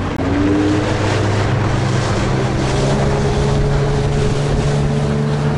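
Small motorboat's engine running steadily under way, rising slightly in pitch about half a second in as it picks up speed, with water rushing past the hull and wind on the microphone.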